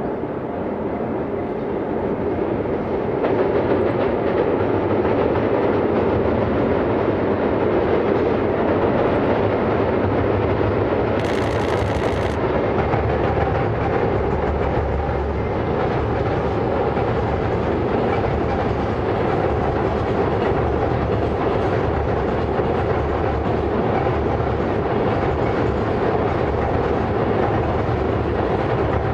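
Container freight train wagons rolling over a railway bridge, wheels clattering over the rail joints. The sound swells over the first few seconds into a steady rumble and clack. A short hiss comes about eleven seconds in.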